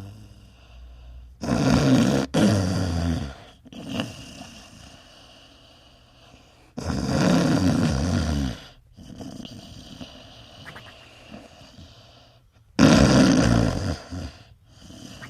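A sleeping dog snoring: three loud snores about five seconds apart, with softer breathing sounds between them.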